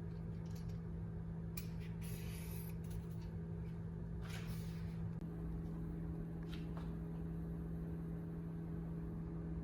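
A steady low hum in a small room, with a few faint, brief rustles.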